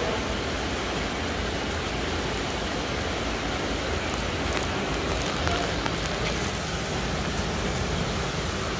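Steady rushing hiss of aquarium-hall background noise, with no pitch to it and a few faint clicks about halfway through.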